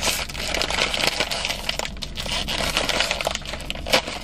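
Crinkling and crackling of a plastic Doritos chip bag being handled and pulled open, with a sharper crackle about four seconds in.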